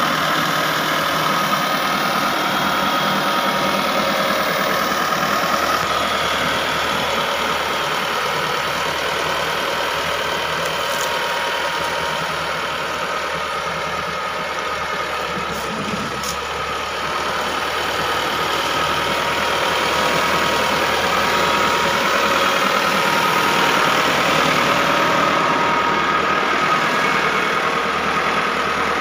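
Massey Ferguson 375 tractor's four-cylinder diesel engine running steadily, easing slightly quieter about halfway through.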